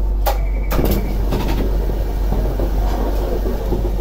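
Inside a Toden 7700 series tram standing at a stop with passengers boarding at the front door: a knock and a short steady electronic beep about a quarter-second in, then a few more knocks and clicks, over the steady low hum of the tram. Faint voices follow.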